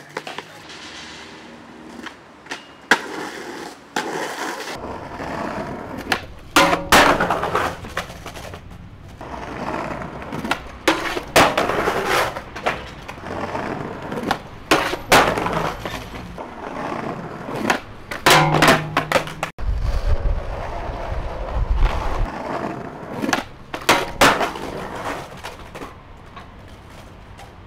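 Skateboard wheels rolling over concrete and stone paving, broken by many sharp clacks of the board popping and slapping down.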